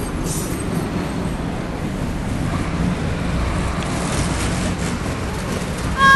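Steady street traffic noise with a low rumble. Right at the end a loud, high-pitched, held tone begins.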